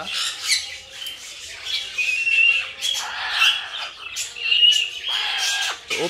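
Parrots squawking in an aviary: many short, high calls overlapping, with two longer harsh squawks about three and five seconds in.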